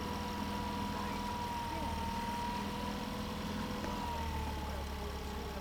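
Small sightseeing boat's engine running steadily under way; its pitch drops slightly about four seconds in as it eases off.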